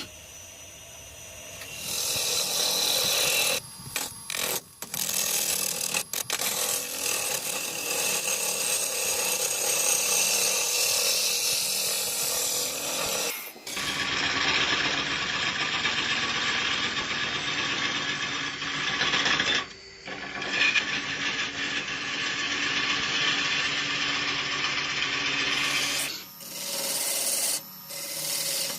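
Wood turning on a lathe: a cutting tool scraping and shaving spinning wood, in a run of separate clips that change abruptly about 2, 14 and 26 seconds in.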